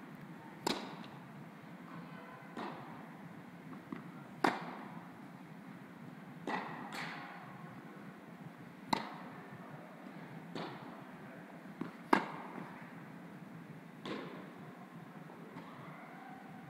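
Tennis balls struck by rackets in a rally: sharp pops about every two seconds, louder close hits taking turns with fainter distant ones, each with a short echo in the indoor tennis hall.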